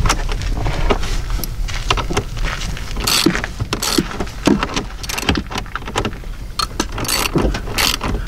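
Small metal clinks and clicks of a wrench and ring terminals on a battery post as a nylock nut is fitted and tightened, coming irregularly over a low steady rumble.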